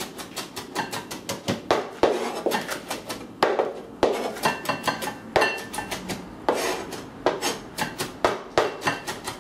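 Kitchen knife mincing a habanero chile on a cutting board: quick runs of blade taps against the board, several a second, with some heavier knocks that ring briefly.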